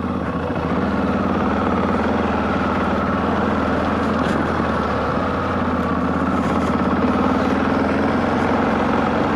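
Motorcycle engine running steadily at a near-constant pitch.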